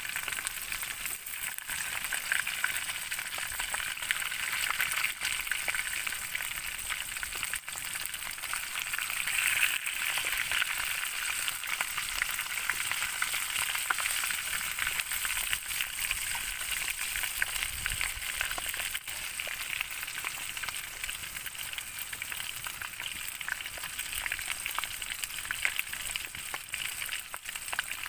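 Chicken pieces deep-frying in hot oil in an aluminium pan over a wood campfire: a steady sizzle peppered with fine crackles and spits.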